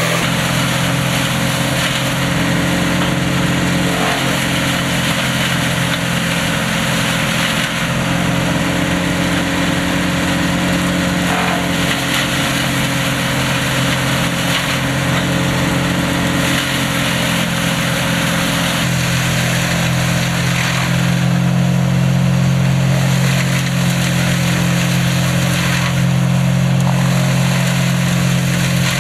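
Salsco 813XT wood chipper's engine running steadily, its tone shifting slightly about two-thirds of the way in and a little louder after that.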